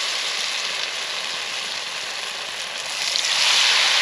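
Beer-battered Spanish mackerel pieces sizzling as they shallow-fry in very hot oil in a pot over a campfire. A steady hiss that swells louder about three seconds in.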